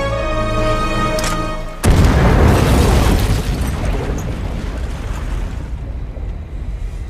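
Dramatic film score holding sustained notes, cut off about two seconds in by a sudden loud, deep boom that rumbles and slowly fades.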